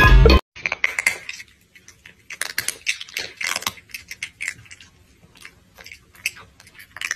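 Eating sounds after the music cuts off just after the start: a quiet, irregular run of crisp clicks and crunches, several a second.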